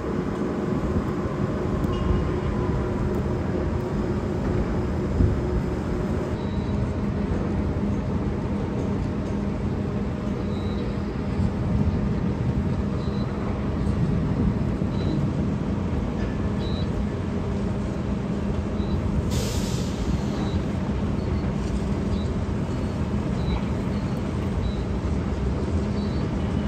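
Heavy diesel machinery on a construction site running steadily, a low engine drone with a steady hum. About two-thirds of the way through there is one short hiss of released air.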